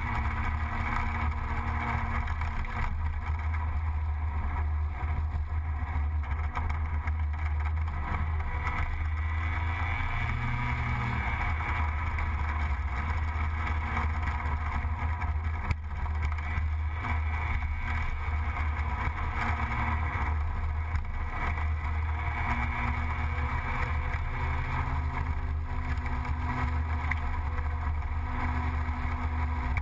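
Gilera Runner 180 scooter engine running steadily while under way, with an even rush of wind and road noise over it. The engine note rises briefly about ten seconds in.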